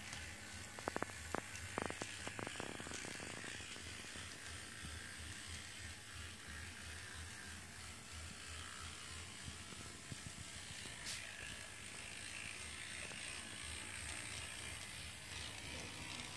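A TT-scale model diesel locomotive running along the track, its small electric motor and gear train whirring steadily. Several sharp clicks come in the first three seconds as the wheels run over the turnout and rail joints, and there is one more click about eleven seconds in.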